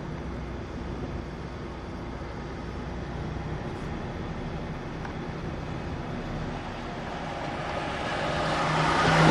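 Steady road and engine noise inside a moving car, swelling louder near the end.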